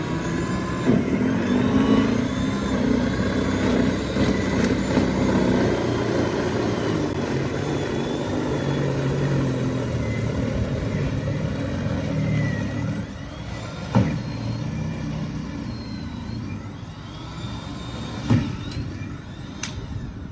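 Battery-powered 40V cordless snow blower with a brushless motor, running steadily while clearing snow. Two sharp knocks come a little after halfway and again near the end.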